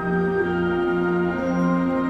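Symphony orchestra playing live: several held notes change pitch about half a second in, over a low pulsing figure that repeats at a steady pace.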